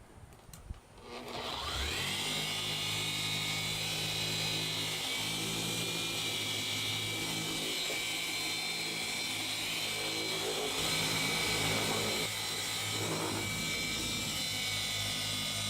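Electric car polisher starting up, its whine rising in pitch over the first two seconds, then running steadily on the paint with small changes in load.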